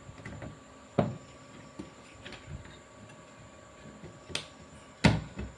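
A few sharp clicks and knocks from handling parts and the TV chassis on a workbench: one about a second in and a pair near the end, the last of them the loudest.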